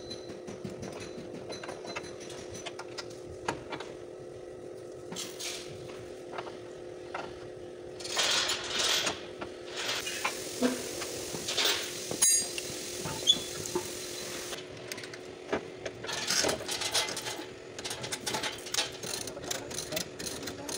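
Body-shop work noise: a steady machine hum under irregular metal clanks, knocks and scrapes as loose steel body parts are handled, with louder bouts of scraping a third of the way in and again past the middle.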